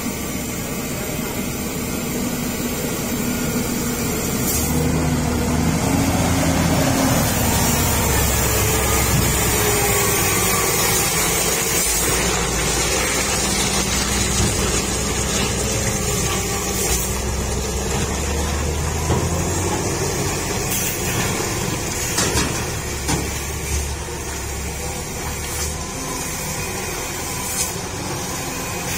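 Diesel engine of a Hino truck towing a loaded flatbed trailer, pulling slowly through a steep hairpin bend, its low engine note rising and shifting as it moves, with a few short hisses in the second half.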